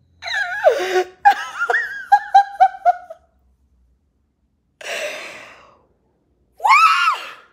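A woman laughing and gasping in pain from a fresh burn from hot tea: a falling cry, then a run of short laughs, a hard breath out about five seconds in, and a pursed-lip 'ooh' that rises and falls near the end.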